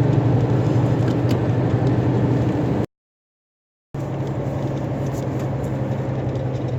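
Truck's diesel engine running steadily under way, with road noise, heard from inside the cab. It drops out to total silence for about a second a little before the middle, then returns.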